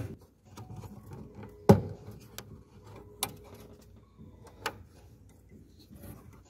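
Plastic clicks and rustling from an Opel Zafira headlight as the parking-light bulb holder is twisted and pulled out of the housing. There are three sharp clicks about a second and a half apart, the first the loudest, with quieter handling noise between them.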